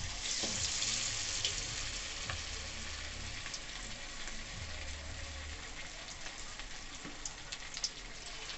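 Marinated chicken leg piece deep-frying in hot oil in a steel kadai: a dense sizzle that starts loud as the piece goes into the oil and eases slightly, with scattered pops and crackles.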